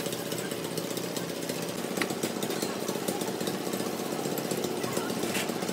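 A machine running steadily with a fast pulsing rattle, and a couple of sharp metal clinks from tools and parts being handled.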